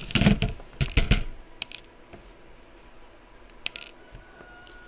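A few sharp clicks and taps of small electronic parts and hand tools being handled on a workbench, bunched in the first second, then two more a little later and one near the end, while LEDs are fitted into a circuit board.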